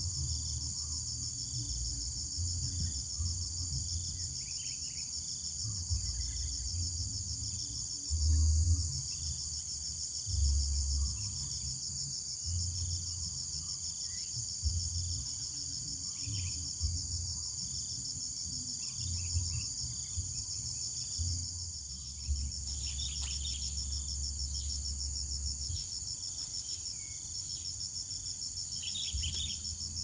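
Insects chirring without a break in a high, rapidly pulsing drone, over intermittent low rumbles. A few faint short high chirps come through, most clearly near the end.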